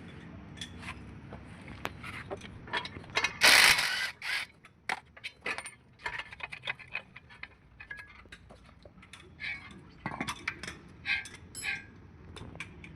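Mechanic's hand tools working on a car wheel hub during a wheel bearing replacement: a ratchet wrench clicking, with irregular metal clicks and knocks. About three and a half seconds in comes a loud, short hiss-like rasp.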